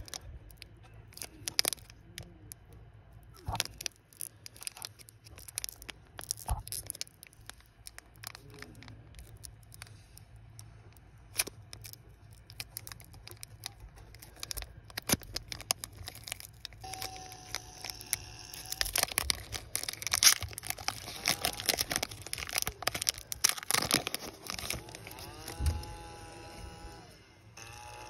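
Foil wrapper of a Pokémon booster pack crinkling and tearing as it is worked open by hand, with irregular sharp crackles and clicks, then cards shuffled and handled. In the second half some held, wavering tones sound in the background.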